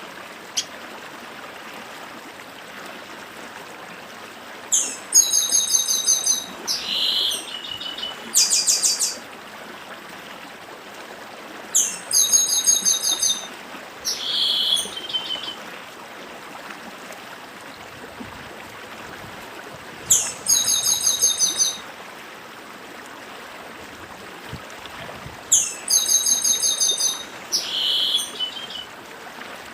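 Chestnut-capped blackbird (papa-arroz) singing its 'dedim' song: four bouts of quick, rapidly repeated high notes, each a couple of seconds long and several seconds apart, over the steady rush of a stream.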